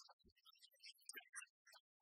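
Near silence, with only faint scattered ticks.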